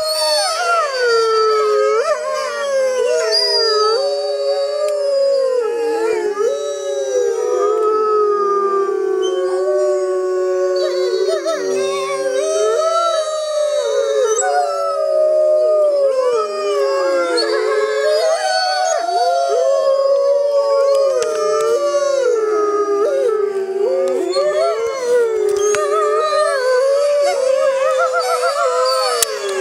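A pack of Arctic wolves howling in chorus: several long howls overlap, gliding up and down in pitch, with one voice at times holding a steadier low note beneath the others.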